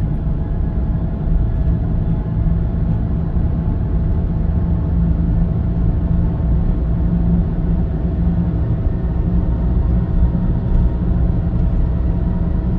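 Car cruising at steady speed, engine and tyre noise heard from inside the cabin as a steady low rumble with a faint hum.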